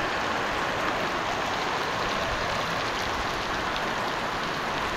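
Heavy rain pouring steadily, an even, unbroken wash of falling drops.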